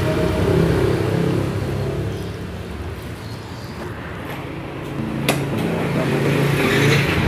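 Yamaha NMAX scooter's single-cylinder engine idling steadily while it warms up after a coolant top-up, with one sharp click about five seconds in.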